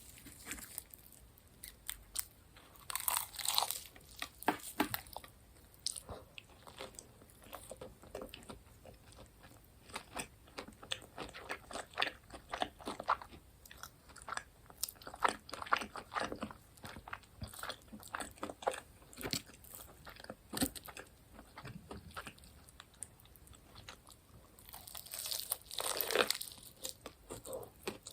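Close-miked crunchy bites and chewing of seasoned fried food, a run of short crackling crunches with louder bursts about three seconds in and again near the end.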